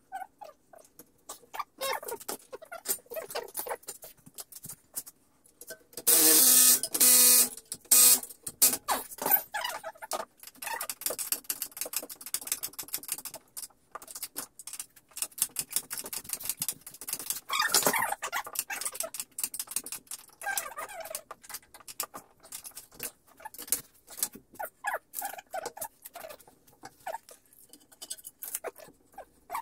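Hand tools clicking, clanking and knocking on a car's suspension as coilovers are fitted, irregular throughout, with a loud two-second burst about six seconds in and a shorter loud one near the eighteen-second mark.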